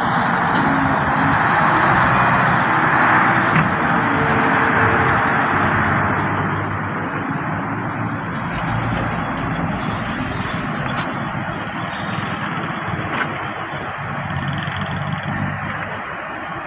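A truck crane's diesel engine running steadily. It is somewhat louder for the first several seconds, then settles a little lower.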